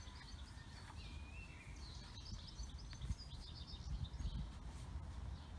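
Quiet garden ambience: small birds chirping a few times over a faint low rumble.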